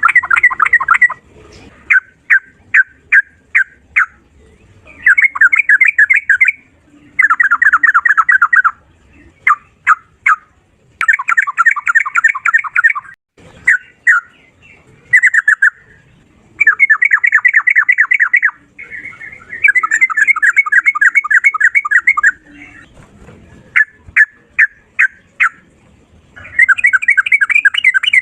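Sooty-headed bulbul (trucukan) singing rapid-fire: dense trilled phrases of one to two seconds alternating with runs of separate short sharp notes, with brief pauses between.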